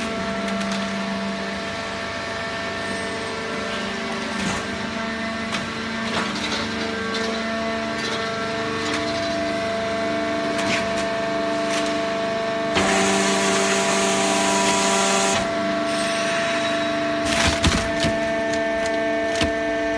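Automatic hydraulic cardboard baler running: a steady machine whine and hum, with sharp cracks and crunches as cardboard is compressed, and a hiss for a couple of seconds past the middle.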